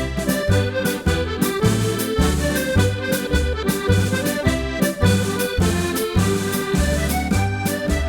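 Accordion playing a Scottish jig: a quick melody over a steady, even bass-and-chord accompaniment.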